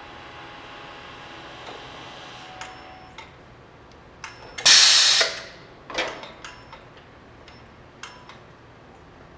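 A Harrington electric chain hoist runs with a steady hum for the first couple of seconds and stops. About halfway through, the pneumatic grip cylinder vents with a loud, short burst of air hiss as the gripper jaws are worked. A few sharp metal clicks and knocks from the tool and its jaws follow.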